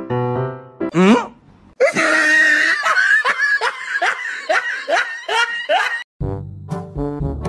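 A person laughing loudly and heartily, a run of falling 'ha's two or three a second, set off by a quick rising sound effect about a second in. Background music fades under it at the start and brass-led music comes in near the end.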